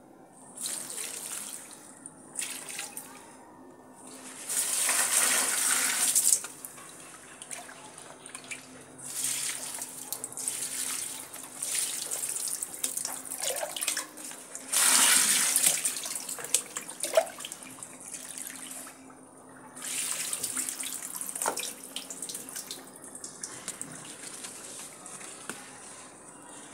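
Water splashing onto potted houseplants as they are watered, in repeated bursts of about one to two seconds with short pauses between them.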